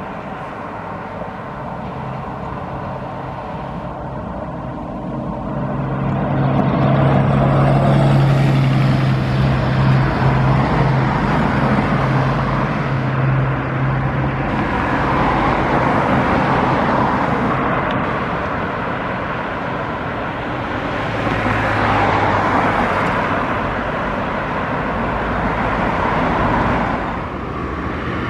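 Alfa Localo city buses on the Volvo B7RLE chassis driving past, their diesel engines running with a steady drone that swells as each bus comes close, over road and traffic noise.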